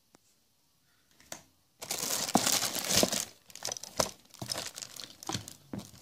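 Plastic wrapping crinkling and rustling as a bagged item is handled and lifted out of its box, with several sharp crackles; it starts about two seconds in.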